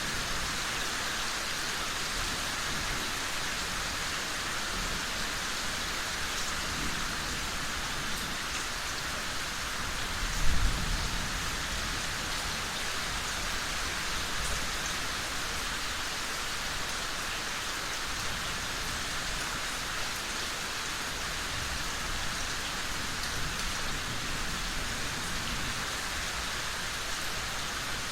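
Steady rain falling, an even hiss. About ten seconds in comes one short, low thump, louder than the rain.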